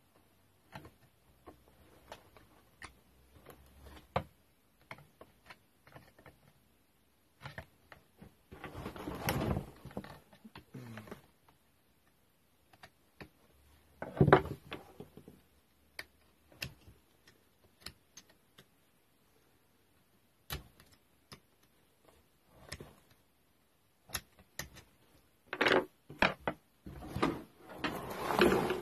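Hand tools and metal and plastic parts being handled while a grass strimmer is stripped down: irregular clicks, knocks and rattles with short scraping bursts, the loudest knock about 14 seconds in and a busier stretch near the end.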